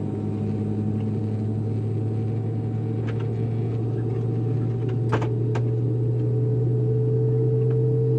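Rolls-Royce BR715 turbofan of a Boeing 717 running at idle on the ground, heard through the cabin wall from a rear window seat: a steady low drone with a higher whine that edges up slightly and grows a little louder. A few light clicks come around the middle.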